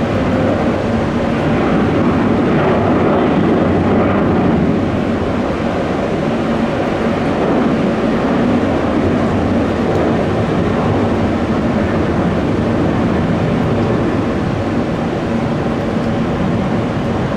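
Jet airliner engines running loud and steady, a dense roar with a faint steady hum underneath.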